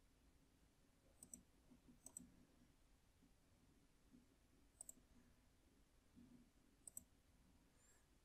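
Near silence with four faint computer mouse clicks spread over several seconds.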